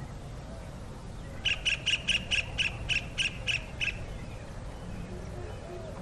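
Kingfisher calling: a quick run of about a dozen short, sharp notes, four or five a second, starting about a second and a half in and lasting a little over two seconds.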